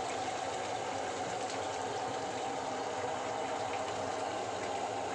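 Rotary drum chicken plucker running: a steady churning whir from the spinning rubber-fingered plate, with wet splashing as a scalded chicken is held against the fingers.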